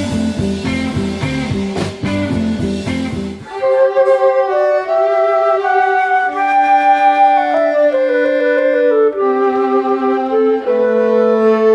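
Music: a band groove with bass and drums that cuts off about three and a half seconds in, followed by a slow melody of held notes in several parts, with no bass underneath.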